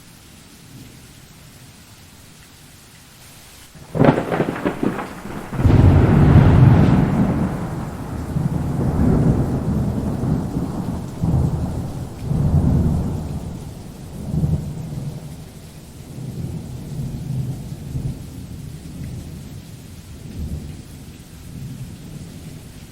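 Steady rain, then a close lightning strike: a sharp crack of thunder about four seconds in, followed a second and a half later by a deep boom that rolls on in waves of rumbling, slowly dying away.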